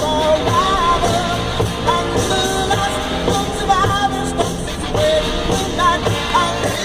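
Rock-and-roll music playing, with a voice singing a melody over a steady beat.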